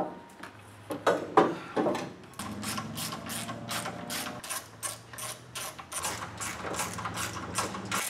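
Hand ratchet with a socket on an extension, clicking in an even run of about four clicks a second, after a few knocks as the socket goes onto the bolt. It is running in the sway-bar-bushing-bracket-to-frame bolts, snug but not yet fully tightened.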